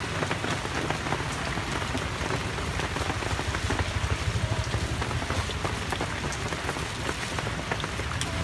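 Battered banana pieces deep-frying in a wok of hot oil: a steady sizzle full of small crackles and pops, with a low rumble underneath.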